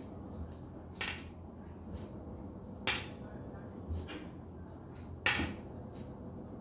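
Metal knitting needles clicking together during hand-knitting of a purl row: four short sharp clicks at uneven intervals.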